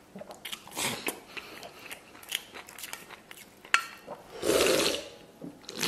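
Close-up eating sounds: chewing, and wooden chopsticks clicking and scraping against a stainless steel bowl. One sharp tap rings briefly on the steel a little before the middle. Shortly after comes a louder rushing sound lasting under a second.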